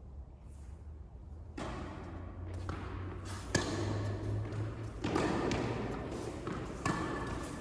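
Tennis ball struck by rackets on an indoor court: two sharp hits about three and a half seconds apart, the first about halfway in, over a rising bed of court noise.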